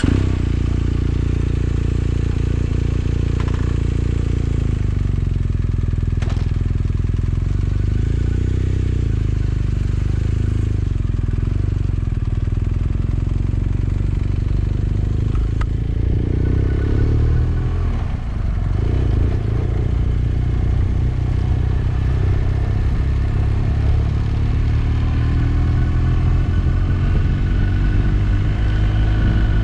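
Motorcycle engine running steadily, coming in loudly at the start, then rising in pitch over the last few seconds as the bike accelerates.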